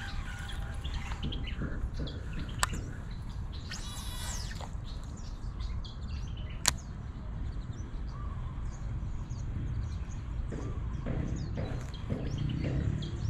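Small birds chirping over a steady low rumble, with two sharp clicks and a brief rushing whizz about four seconds in.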